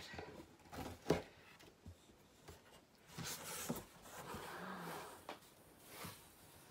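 Cardboard shipping box flaps being lifted and folded back by hand: rustling and scraping of cardboard, with a sharp knock about a second in.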